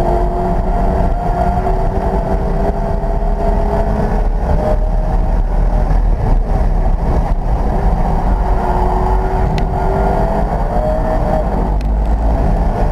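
McLaren P1's twin-turbo V8 heard from inside the cabin at speed on a race track. The engine note falls about four seconds in as the car slows for a corner, then rises again toward the end as it accelerates out.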